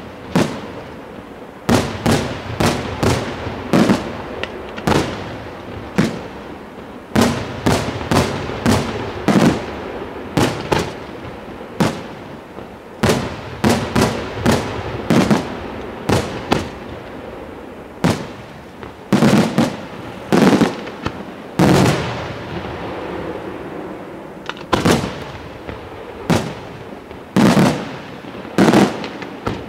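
Aerial fireworks shells bursting in an irregular run of sharp bangs, about one or two a second, each trailing off in an echo, with a couple of brief lulls.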